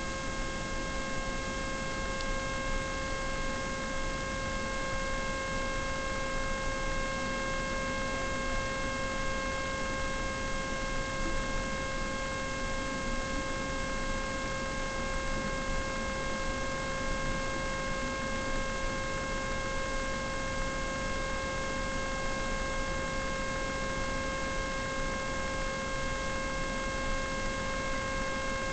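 Steady electrical hiss with a constant whine made of several evenly spaced tones, unchanging throughout; no other sound stands out.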